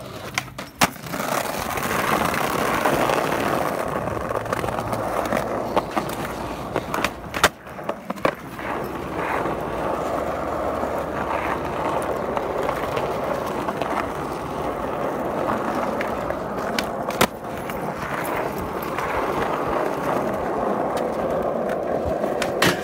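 Skateboard wheels rolling on asphalt, a steady rolling rumble, broken by a few sharp clacks of the board, the loudest about seven and a half seconds in and again near the end.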